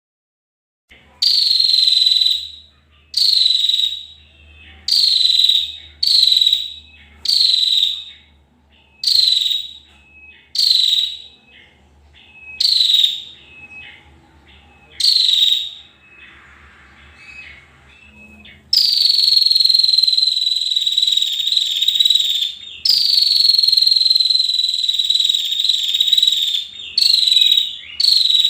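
A bird-training (masteran) recording of a high, buzzing trill: about ten short trills of roughly a second each, then two long trills of three to four seconds each.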